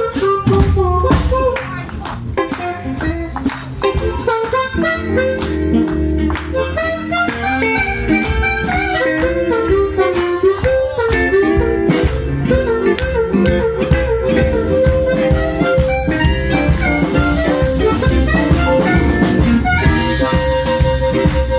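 Live blues band with an amplified harmonica playing lead, cupped against a handheld microphone, over electric guitars and drums. The harmonica returns again and again to a long held note.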